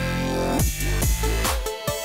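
Background electronic music with heavy bass and drum hits.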